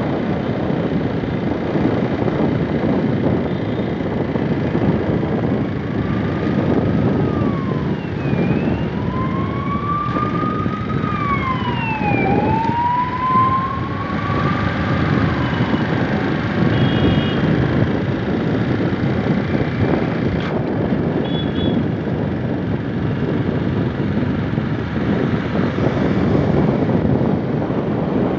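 Steady rushing wind and road noise from riding a two-wheeler along a road. From about six seconds in, a siren wails, sliding up and down in pitch several times before fading near the middle, and two brief high beeps follow a little later.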